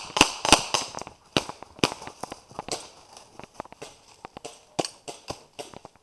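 Scattered airsoft gun shots: sharp pops fired singly and in quick pairs, a few each second.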